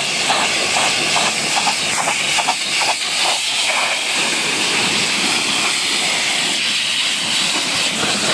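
Pressure washer's high-pressure water jet spraying onto a car's rear window and bumper: a loud, steady hiss, with a spattering crackle in the first few seconds.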